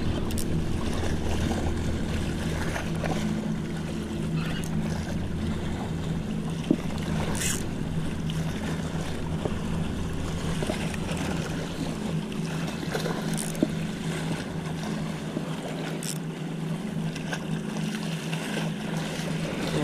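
A boat motor running steadily nearby, a low hum under wind on the microphone and water noise, the hum thinning in the second half. Two short sharp clicks, about a third of the way in and again about two-thirds in.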